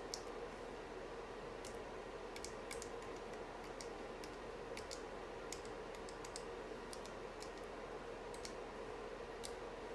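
Keys of a UT47.2 40% mechanical keyboard clicking, irregular and unhurried at about one to three a second, over a steady low hum.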